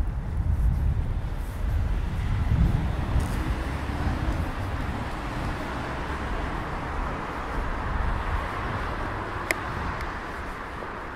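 City road traffic: a vehicle passing with a low rumble, loudest in the first few seconds, settling into steadier traffic noise. There is a single sharp click about nine and a half seconds in.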